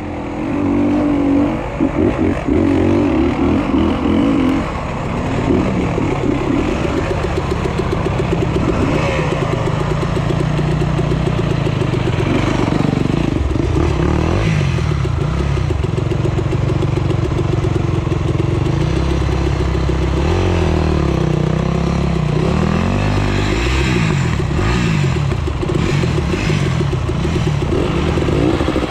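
Dirt bike engines running and revving up and down, their pitch rising and falling continually, under load on a steep, loose, rocky climb.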